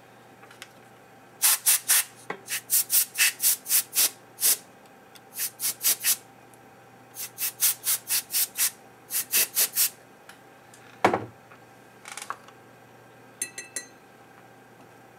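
Quick scrubbing strokes on a circuit board, in runs of about three a second with short pauses between: flux being cleaned off the board around the CPU. A single thump about eleven seconds in.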